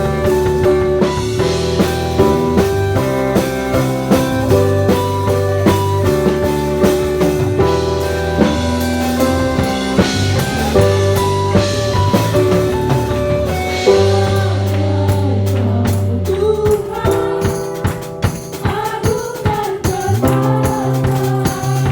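Worship band playing a gospel praise song with a steady drum-kit beat, tambourine, bass and held keyboard chords. Singing joins in about two-thirds of the way through.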